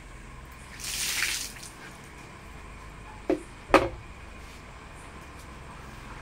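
Water splashing briefly as it is poured from a small tin can over a snake on a concrete floor, followed a couple of seconds later by two sharp knocks about half a second apart, the second one louder.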